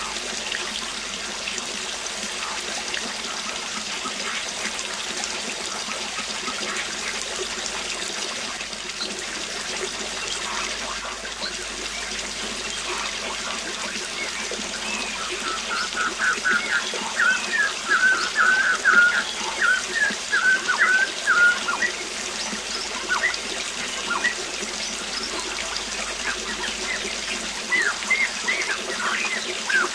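Waterfall rushing steadily, with a bird calling in rapid series of short chirps about halfway through and again near the end.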